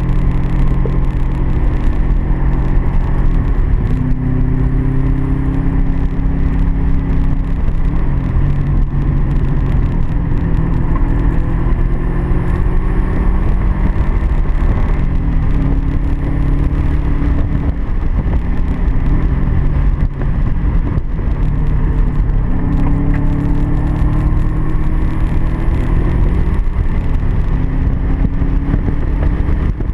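Car engine at track pace, its pitch climbing under hard acceleration and dropping again several times as it shifts and slows for corners.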